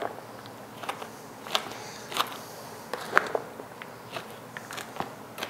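Spoon stirring a wet mix of bread cubes, flour and milk in a large mixing bowl: irregular scrapes and knocks of the spoon against the bowl, the sharpest a little after three seconds in.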